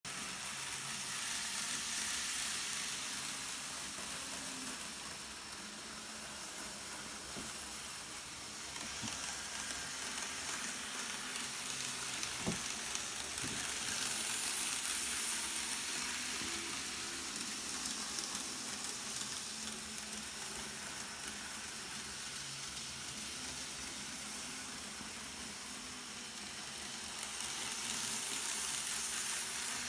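N-scale model trains running on the layout's track: a steady fine hiss that swells three times as trains pass near, with two faint clicks about halfway through.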